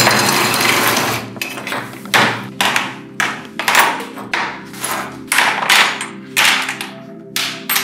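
Metal being struck repeatedly, about two blows a second, with a steady noise for the first second or so. Soft background music plays underneath.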